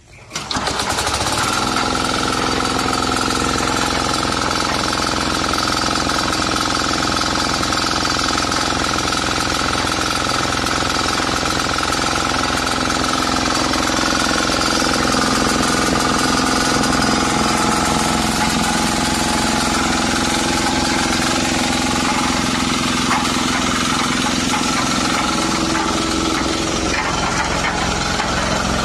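A 7 HP single-cylinder diesel engine on a concrete mixer catches on a pull start about a third of a second in. It then runs steadily with a hard diesel knock.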